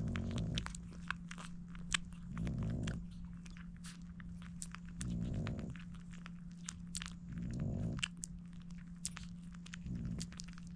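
Newborn French bulldog puppies suckling at their mother's teats, with many quick wet clicks and smacks. Under them are the mother's slow, regular breaths, about one every two and a half seconds.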